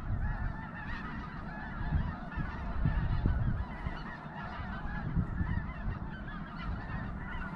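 A huge flock of snow geese calling all at once, a continuous din of overlapping honks. A low rumble runs underneath and swells about two to three seconds in.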